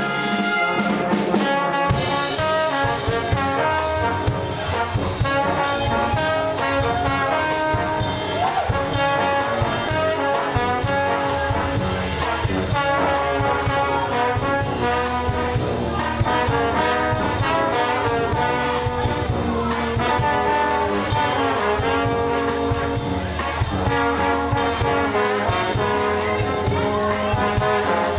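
Street busking brass band playing a lively tune, trombone and trumpet leading, over a steady beat.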